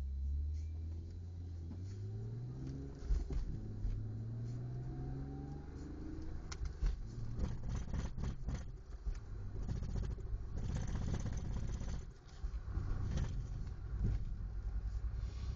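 1993 BMW E36 accelerating: engine pitch climbs, breaks at a gear change about three seconds in, then climbs again. From about six seconds in come repeated irregular knocks and thumps: the knocking and vibration the owner cannot place and likens to a wheel.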